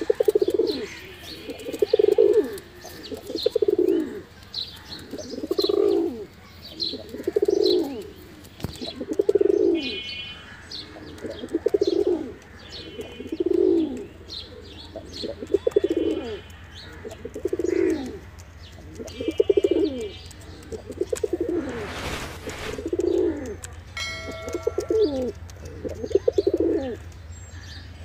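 Domestic pigeon cooing over and over, one low rolling coo about every one and a half to two seconds: the courtship coo of a male puffed up with its tail fanned.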